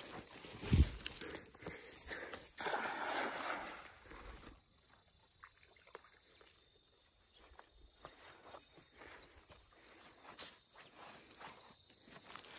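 A cast net thrown onto still water: a low thump about a second in, then a spraying splash lasting about two seconds as the weighted net lands on the surface.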